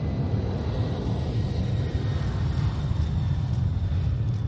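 Boeing 747's four jet engines at takeoff thrust: a deep, steady rumble with a faint high whine above it.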